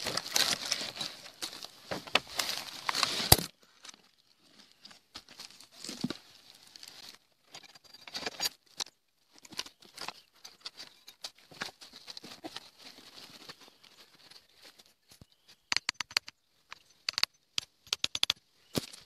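Black plastic wrapping on a PET-bottle bee bait trap crinkling and rustling as it is handled, loud for the first three seconds and then stopping abruptly. After that come scattered faint rustles and clicks, with a quick run of sharp clicks near the end.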